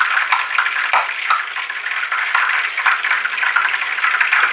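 Whole spices (bay leaves and a cinnamon stick) sizzling in hot cooking oil: a steady, loud crackling hiss with scattered sharp pops.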